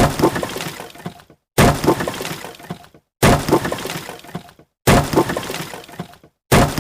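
A smashing sound effect, a sharp crash followed by a tail of small clattering pieces, repeated identically five times about every 1.6 seconds with dead silence between.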